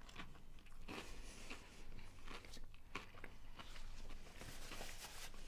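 A person chewing a mouthful of burger topped with finely crushed potato chips, with small irregular crunches and mouth sounds. A paper napkin rustles about four and a half seconds in.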